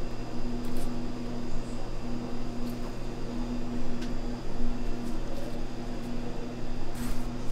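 Steady mechanical hum of running machinery, with a low drone and a few faint, short clicks over it.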